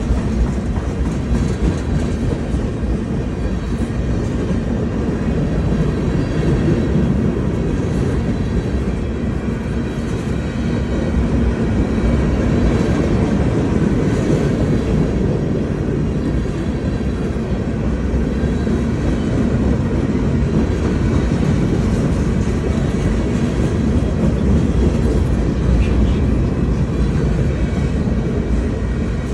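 CSX manifest freight train rolling past, the railcars' wheels on the rails making a steady, loud rumble throughout.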